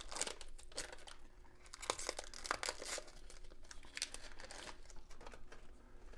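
Foil wrapper of a Topps football card pack crinkling and tearing as it is ripped open by hand, then rustling as the stack of cards is pulled out. The crackling is densest in the first three seconds and thins out after.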